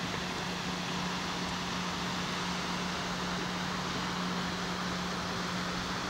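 Steady rushing of a waterfall, an even hiss-like roar with no breaks, over a steady low hum.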